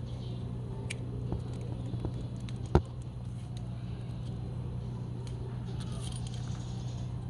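Small clicks and rustles of hands handling plastic wiring connectors on a motorcycle, with one sharp click nearly three seconds in, over a steady low hum.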